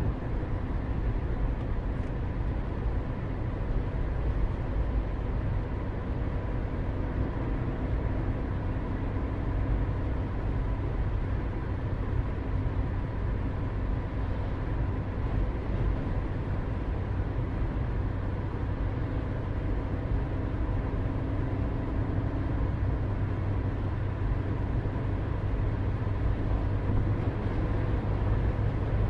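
Distant engine noise: a steady low rumble with a faint, even hum over it.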